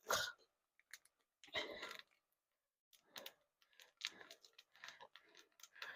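Faint, scattered small clicks and rustles of a seasoning container being opened by hand with a sharp tool.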